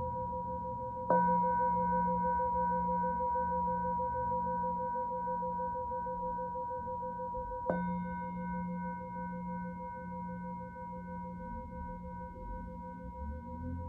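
Tibetan singing bowl struck twice, about a second in and again near the eight-second mark, each strike ringing on and slowly fading with an even pulsing beat in its tone.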